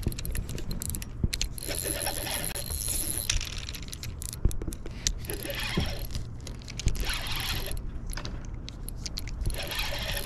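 Fishing reel working against a hooked king salmon: a ratcheting mechanical whirr in spells of one to two seconds, with scattered clicks between.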